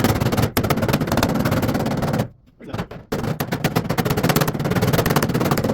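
Rapid-fire crackling and rattling of a tool working the truck's rusted sheet metal, in two bursts with a pause of about a second near the middle.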